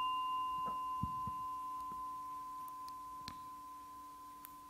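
A struck meditation bowl bell ringing on after the strike: one clear steady tone with a lower hum beneath, fading slowly. Its higher overtones die away within the first two seconds.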